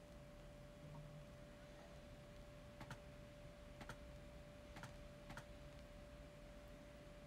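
Near silence: room tone with a faint constant tone and four faint clicks in the second half.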